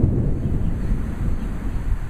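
Gusty wind buffeting an outdoor camera's microphone: a low, uneven rumble, with a swell that fades over the first second.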